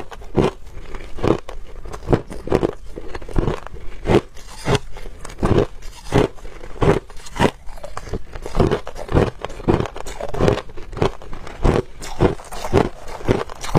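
Crushed ice being chewed close to a lapel microphone: a steady run of sharp, brittle crunches at about two a second.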